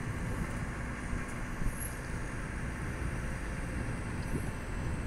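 Steady low rumble of engines and machinery on a cargo-ship quay, with a faint steady hum under it.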